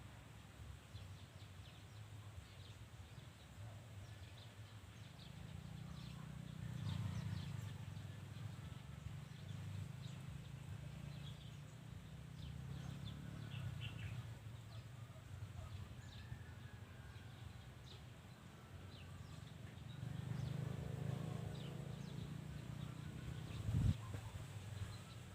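Scattered short bird chirps over a steady low hum, with a wavering call about twenty seconds in and a single sharp knock near the end.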